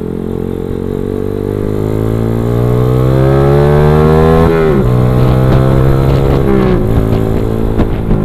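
Motorcycle engine accelerating hard, its pitch rising steadily, then dropping sharply and climbing again twice as the rider shifts up through the gears, about halfway and about three-quarters of the way through.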